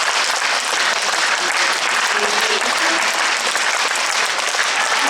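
Concert audience applauding steadily: dense, even hand-clapping from a full hall, with a few voices calling out underneath.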